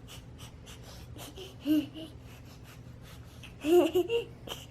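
A young child making rapid breathy, huffing noises, broken by two short whiny vocal sounds, the second and louder about three-quarters of the way in.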